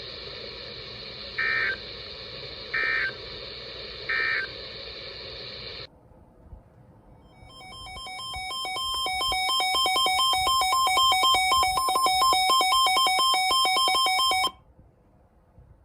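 Weather radio static hiss with three short bursts of EAS end-of-message data tones, about a second and a half apart; the hiss cuts off about six seconds in. After a brief near-silent pause, a buzzy electronic warbling tone that flips rapidly between two pitches fades in, holds for several seconds and then cuts off suddenly.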